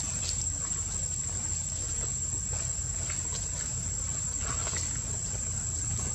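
Steady high-pitched insect drone over a low rumbling background, with a few faint rustles in dry leaves.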